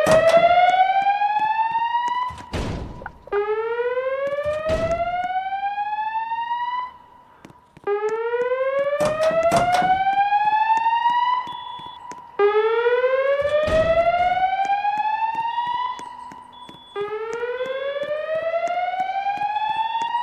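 Fire alarm voice-evacuation speaker strobes (Wheelock E-50 wall and E-60 ceiling units) sounding a whoop alert tone between voice messages. Each sweep rises in pitch for about three seconds, holds briefly at the top, then starts again about every four and a half seconds. A few short clicks and thumps fall in between.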